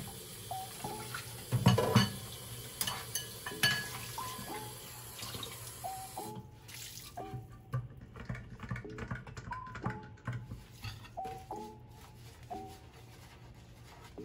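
Kitchen tap running into a stainless steel sink while a bowl is rinsed, with crockery clinking against the sink; the water stops about six seconds in, leaving quieter sponge scrubbing. Soft background music with repeated pitched notes plays throughout.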